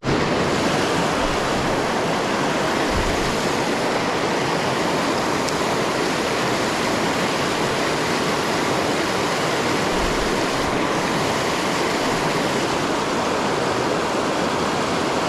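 Creek water rushing steadily over rocks, a constant even hiss and roar that starts abruptly.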